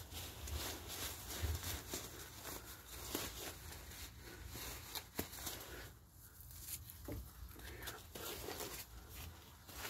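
Pop-up tent fabric and its carry bag rustling and crinkling as they are handled, in scattered irregular scrapes and rustles, with a low rumble underneath.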